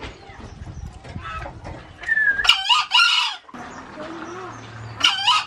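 Green junglefowl (Gallus varius) rooster crowing: a short, harsh two-part crow about two seconds in, and another starting near the end.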